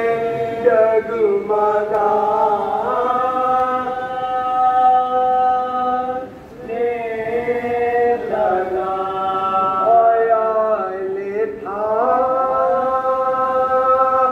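A group of men chanting a Muharram mourning lament (noha) together, unaccompanied, in long held notes, with a short break between lines about six seconds in.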